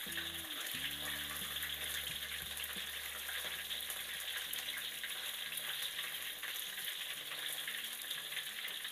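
Pandan-wrapped chicken wings deep-frying in hot oil in a wok, a steady sizzle, with metal tongs stirring and turning the pieces.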